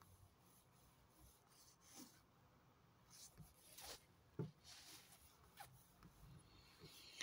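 Near silence: faint room tone with a few soft clicks and rustles.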